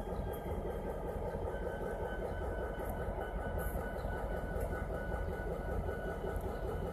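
Diesel-electric locomotive engines running steadily as the GMTX 2663 road-switcher and a second locomotive creep slowly along the track, with a faint steady high whine over the rumble.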